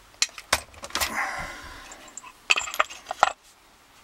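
Metal clunks and clinks as a bench vise is moved out of the way on a workbench: a few sharp knocks, a short metallic rattle about a second in, and a quick cluster of clacks near the end.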